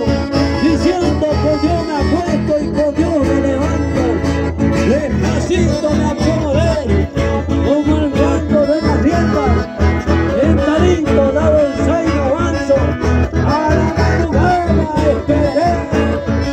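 Live accordion and acoustic guitar dance music through a PA, loud and steady with a regular beat.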